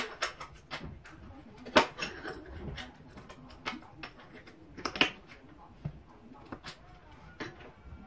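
Small AR-15 charging handle and latch parts clicking and clacking as they are handled and set down on a wooden table, with sharper knocks about two seconds and five seconds in.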